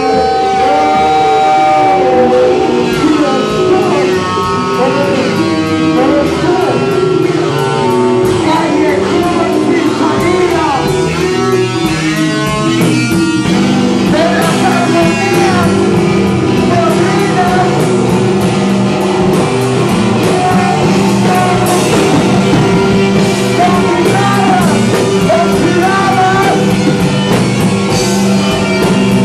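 Loud live band music, dense and continuous, with guitar and drums under pitched lines that glide up and down.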